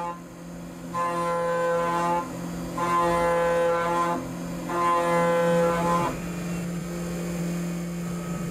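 Milling spindle running with a steady hum while a ceramic-insert shell mill cuts Inconel 625, the cut ringing as a high, pitched whine in three stretches of about a second and a half each. The whine stops about six seconds in and the spindle hum carries on.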